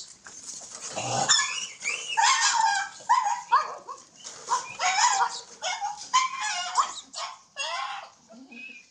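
Black pug puppies yipping and whining: many short, high calls with bending pitch in quick succession, starting about a second in and dying away near the end.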